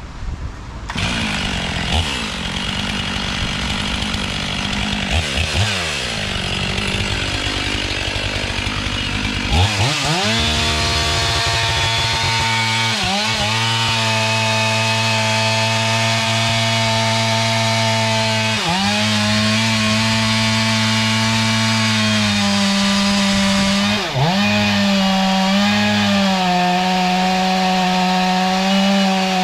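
Two-stroke chainsaw running at high revs and cutting wood. The engine note dips briefly and recovers three times in the second half as the saw loads up in the cut.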